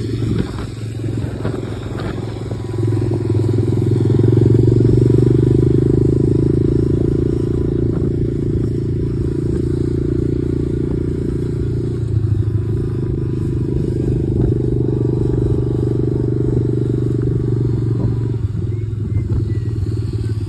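Dirt bike engine running steadily while riding. It picks up about two to three seconds in and then holds an even pace.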